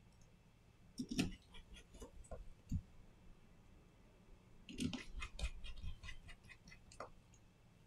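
Faint small clicks and taps of hand tools and parts being handled during a smartphone display replacement, in two clusters, about a second in and around five seconds in.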